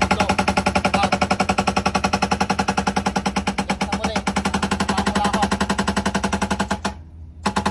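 Excavator-mounted hydraulic breaker pounding concrete in rapid, even blows over the excavator's running diesel engine. It stops for about half a second near the end, then starts hammering again.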